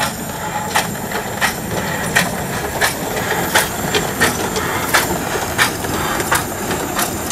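Replica of Marc Seguin's 1829 steam locomotive passing slowly close by, with a steady hiss of escaping steam and a sharp, regular beat about every 0.7 seconds.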